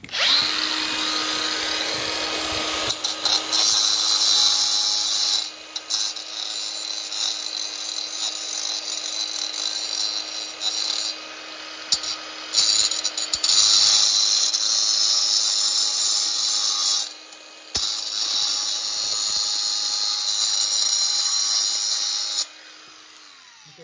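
Cordless angle grinder running and grinding rust off a steel earth rod so the test clamp gets clean metal contact. A steady motor whine sits under a loud, hissing grind, which drops briefly a few times as the load changes and stops near the end.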